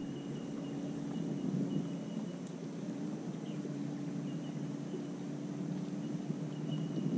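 Electric trolling motor running steadily at slow trolling speed: a low, even hum. A faint high chirping comes and goes over it.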